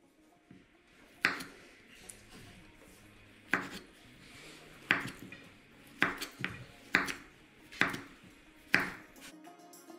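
Kitchen knife slicing peeled bananas on a wooden cutting board, the blade knocking sharply on the board about eight times at uneven intervals, roughly once a second.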